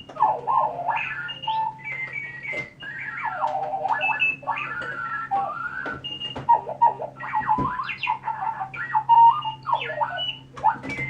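Electronic alarm clock going off, its loud warbling tone sliding up and down in pitch over a low steady hum.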